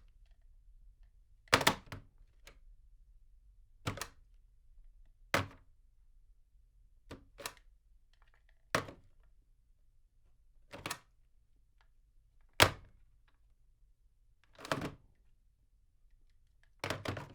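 Desk telephone handset picked up and hung up again and again: short plastic clunks and rattles of the handset against its cradle, one every second and a half to two seconds, some in quick pairs. Heard from a few metres away.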